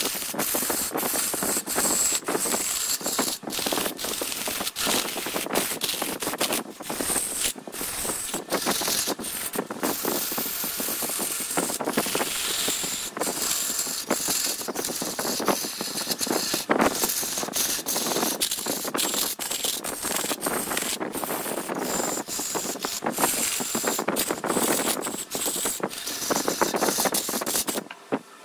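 Wood scraping and rubbing against a tool on a spinning wood lathe, a continuous rasping noise broken by many brief gaps.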